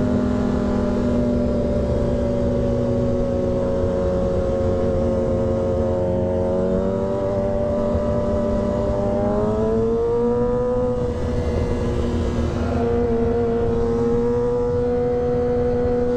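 A high-revving vehicle engine running steadily, its note sagging a little and then climbing in pitch about ten seconds in before holding at the higher pitch.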